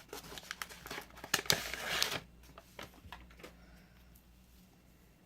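Crinkling of a trading-card pack's wrapping as it is handled, busy for about two seconds, then a few light taps and rustles before it goes quiet.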